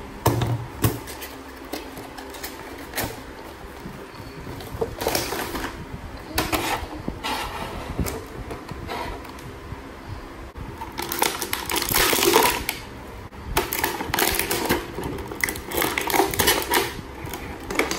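Clear plastic toy packaging tray crinkling and rustling in irregular bursts with clicks as it is handled; the loudest, densest bursts come in the second half.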